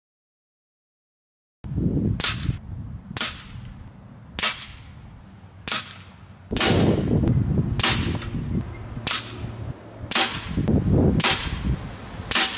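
A regulated .25-calibre Ataman M2 Ergonomic PCP air rifle fires about eleven sharp shots in quick succession, roughly one a second, starting after a second and a half of silence, with a low rumble between shots. The string draws the rifle's air reservoir down toward 200 bar.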